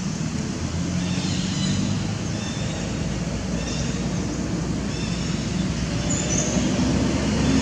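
A motor vehicle engine running steadily, a low hum that grows a little louder near the end, with faint high chirps over it.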